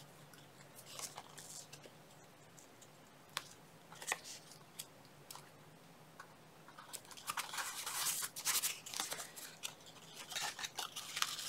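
Paper and cardstock being handled and pressed down by hand, faint: a few soft clicks at first, then a run of scratchy rustling in the second half.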